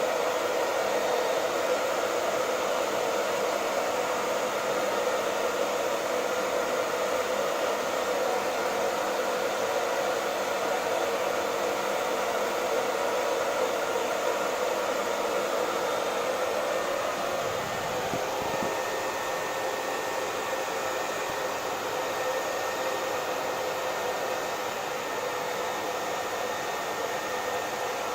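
Hair dryer running steadily: a continuous rush of blown air over the motor's faint whine. About two-thirds of the way through there is a brief low bump, after which it runs a little softer.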